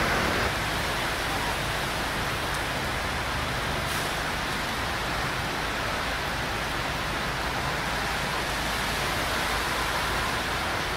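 Steady rushing wash of floodwater churned by cars driving through a flooded road, with traffic behind it. A passing vehicle's engine fades out in the first half-second.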